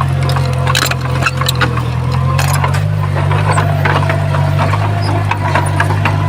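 Heavy earthmoving machine's diesel engine running steadily, with many sharp cracks and clacks of stone knocking and scraping scattered throughout.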